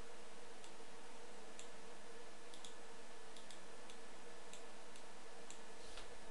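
Steady microphone hiss with a faint low hum. Over it, faint sharp ticks come about once a second, with a few extra clicks close together near the middle.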